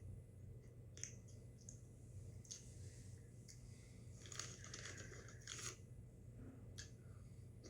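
Faint crunching and chewing of Cheetos Puffs corn snacks, a few scattered crunches with a denser run about four to six seconds in, over a low steady hum.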